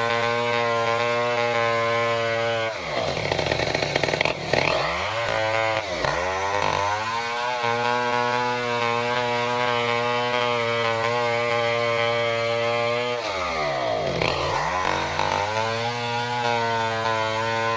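Stihl 070 two-stroke chainsaw running at high revs while ripping lengthwise through a durian log. Its engine speed drops sharply and climbs back up twice, about three seconds in and again near thirteen seconds.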